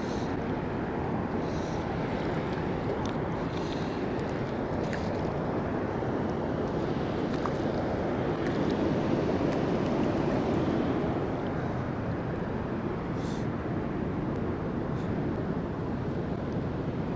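Steady rushing of river water flowing over a shallow, rocky stretch, swelling a little about halfway through.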